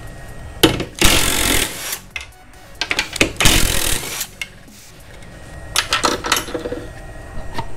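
Hart 20V cordless power tool running in two short bursts, about a second in and again about three seconds in, spinning off the bolts of the front upper control arm. A few metallic clicks and knocks follow near the end.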